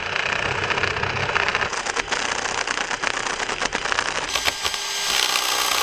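Cordless drill running steadily as its bit bores into the foam core along a structural insulated panel's edge, a continuous whir with a rattling scrape of foam.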